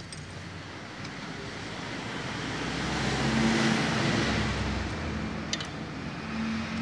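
A motor vehicle passing by, its engine and road noise swelling to a peak about halfway through and then fading. A faint click of parts being handled comes near the end.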